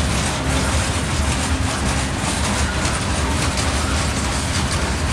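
Freight train rolling past at a steady speed: the low rumble of a mid-train CSX diesel locomotive, with the wagons' wheels clacking over rail joints.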